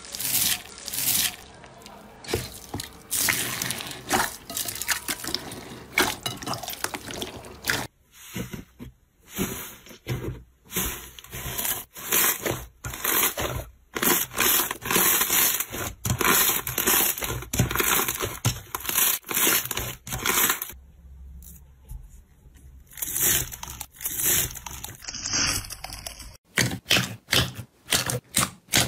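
Slime being squeezed, poked and pressed by hand: a run of short wet squishing and crackling sounds, one after another. The character changes abruptly about 8 seconds in and again near the end, where the squeezes come quicker and crisper.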